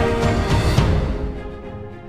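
Background music: a loud full orchestral-style passage with a beat that dies away about a second in, leaving a quieter, thinner section.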